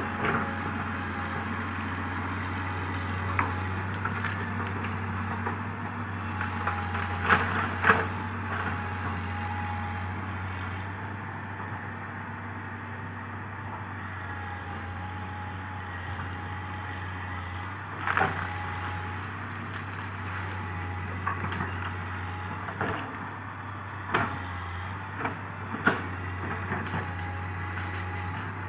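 Komatsu PC200 excavator's diesel engine running steadily while it digs, with sharp cracks and knocks now and then, the loudest a pair about a quarter of the way in and one more past the middle.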